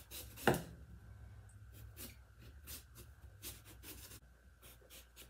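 Kitchen knife cutting the skin off a whole eggplant in strips: a run of short, irregular scraping strokes, with one louder knock about half a second in.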